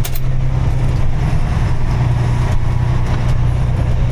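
A vehicle's engine and road noise as it drives, a steady low drone, with one short click right at the start.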